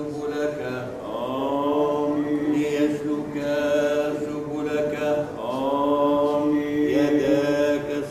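A man chanting the Eastern Orthodox baptismal liturgy in long, drawn-out melismatic phrases. New phrases slide up in pitch about a second in and again at about five seconds.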